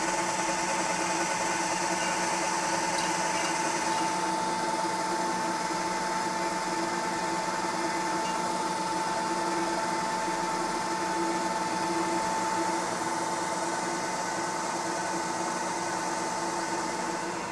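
Vertical milling machine's spindle running steadily with a constant whine while a carbide drill bit bores into the edge of a metal plate.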